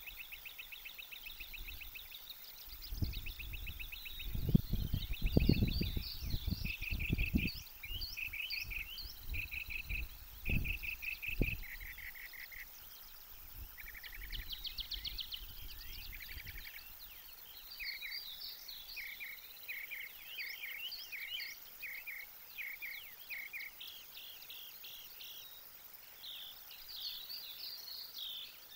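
Several songbirds singing in a dawn chorus, with repeated chirped and trilled phrases throughout. A few seconds in, irregular low rumbling gusts come and go for about fourteen seconds, loudest near the start of that stretch.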